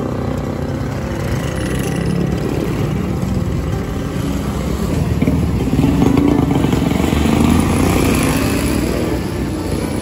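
Street traffic of motorcycle and tricycle engines running, swelling louder about five seconds in and easing off near the end.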